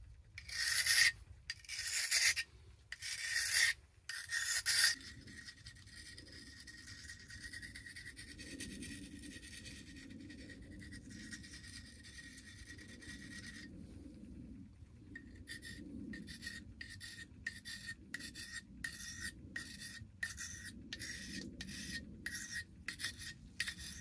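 A steel knife blade being sharpened. Four long, slow scraping strokes come in the first five seconds. After a quieter stretch, quick short strokes follow at about two a second.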